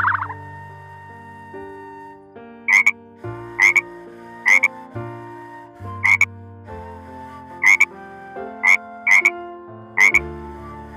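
About nine short, loud animal calls come at irregular intervals over background music with held notes that step from pitch to pitch.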